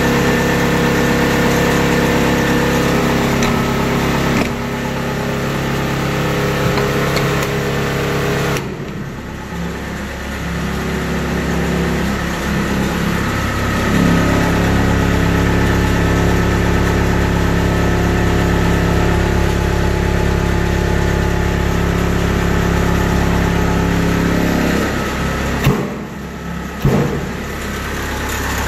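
Kubota DC70 combine harvester's diesel engine running steadily, its tone shifting about nine and fourteen seconds in. Two brief knocks near the end.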